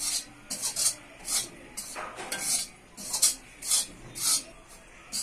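A flat spatula scraping and stirring besan (gram flour) as it roasts in a little oil in a metal kadhai, in quick repeated strokes about two a second.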